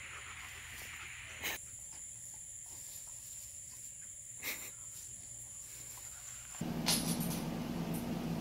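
Steady high-pitched insect drone over grass, broken by two brief knocks. About six and a half seconds in it cuts to a louder, steady low hum.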